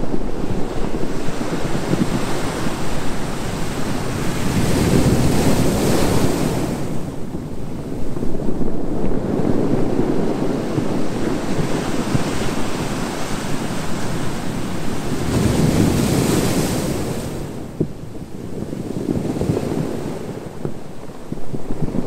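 Small waves breaking on a sandy beach and washing up the shore, a continuous surf that swells and eases. There are two bigger washes of surf, about five and sixteen seconds in.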